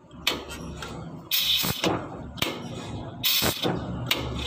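Air hissing in short bursts, about five times, from a Fuso truck's air-assisted clutch booster as the clutch pedal is pressed and released, over a low steady hum.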